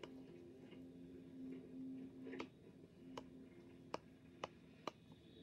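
Faint sharp clicks over a faint, steady low hum: one about two and a half seconds in, then three about half a second apart near the end.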